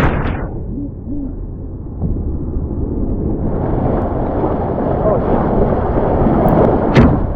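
Rushing whitewater of a class 2 rapid churning around a canoe, loud and steady, with a sharp knock near the end.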